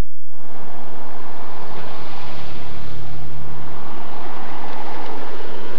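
Loud, steady rumble of vehicle and traffic noise, with a deeper engine drone for about two seconds in the middle.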